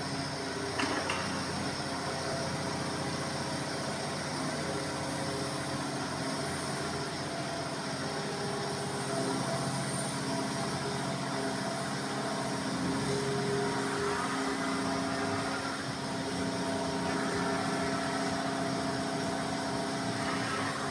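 Diesel engine of a Menzi Muck M545 walking excavator running steadily, its pitch shifting slightly now and then.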